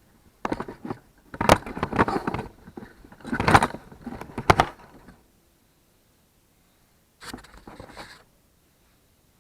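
Metal parts clattering and scraping as they are handled and set in place, in irregular bursts over the first five seconds and once more near the end.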